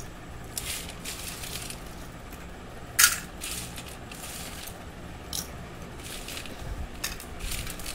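Crisp fried masala peanuts rattling and scraping on a stainless steel plate as a hand stirs through them, in short scattered bursts with one sharp clink about three seconds in.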